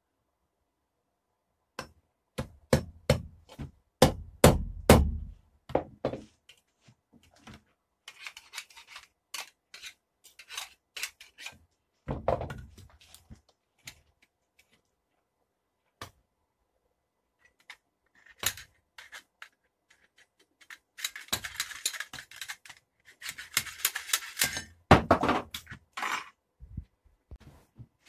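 Hammer blows on steel bar stock over an anvil: a quick run of about eight strikes in the first few seconds, then scattered knocks, clatter and scraping as the metal is handled and repositioned, and another cluster of strikes and scraping near the end.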